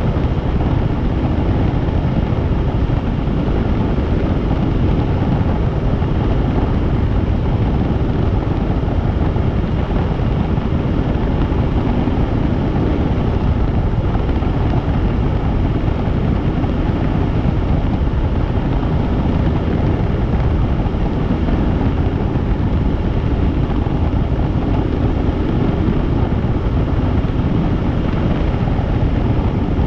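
Helicopter in flight: a steady, loud rush of rotor and engine noise, heaviest in the low end, unchanging throughout.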